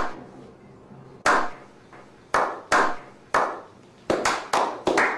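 Sharp slaps of hands. A few come spaced a second or so apart, then they quicken to about four a second, each with a short ring-out.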